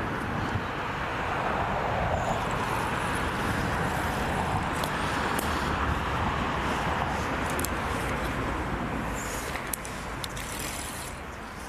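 A passing road vehicle: steady tyre-and-engine noise that swells over the first seconds, holds, and fades away toward the end, with a few light clicks near the end.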